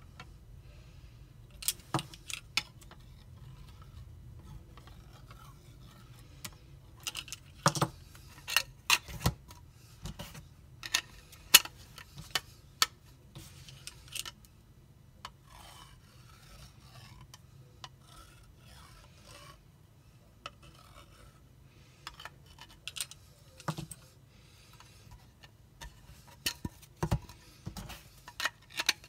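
Hands handling a 3D-printed plastic drawing board and a small metal keychain UV flashlight: irregular clicks, taps and light rattles in bunches, with soft scraping between them.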